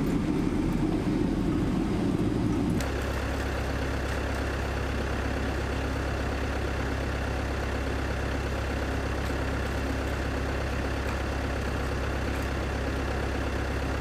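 Diesel van engine heard from inside the cab while driving slowly, then, after an abrupt change about three seconds in, a diesel van engine idling steadily with an even low hum.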